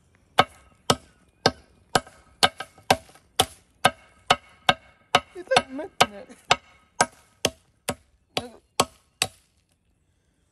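Claw hammer striking geodes inside a zip-top plastic bag on a concrete step: about twenty sharp, evenly spaced blows, roughly two a second, each with a short ring. The blows stop about nine seconds in.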